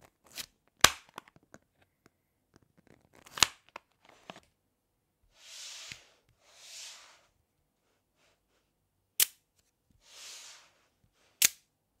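Layers of 5 mm magnet balls snapping together in four sharp clicks, with smaller ticks and three short, softer rasping sounds in between as the ball sheets are slid and handled.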